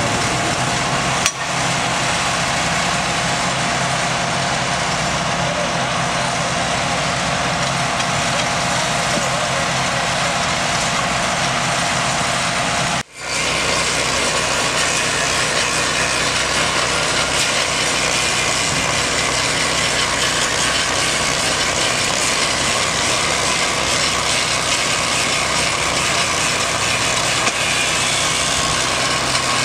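Steady engine noise from track-maintenance machinery: a small engine running without let-up, with a brief dropout about 13 seconds in.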